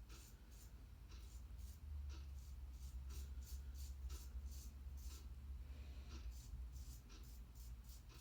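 Double-edge safety razor (Core 34C with a Gillette Silver Blue blade) scraping through lathered stubble in short, faint strokes, about two a second, with a brief pause a little past the middle. A steady low hum runs underneath.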